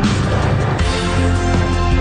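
Loud music playing, with a strong, steady bass line and sustained chords.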